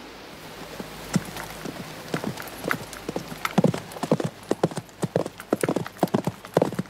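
Hoofbeats of two horses walking, growing louder and more frequent as they come closer.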